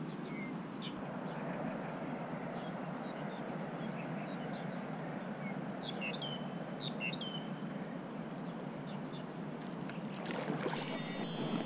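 A river's strong current running steadily, with a few short bird chirps around the middle and a brief, sharp burst of noise near the end.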